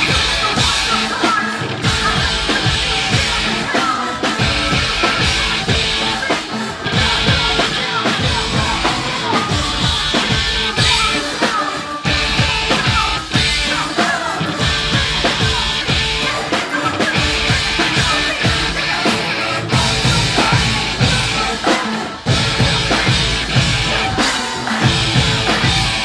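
Live rock band playing at full volume: a steady drum beat with kick and snare, electric guitar and a woman singing into a microphone.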